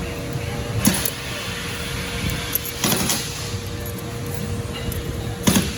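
Steel roller drive chain clinking and rattling in three short bursts as it is handled, over a steady shop hum.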